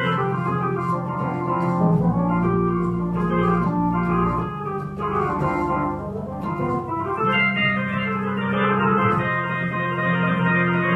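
Piano played with both hands in an improvised instrumental passage: full chords held and changed every second or two over a steady bass line.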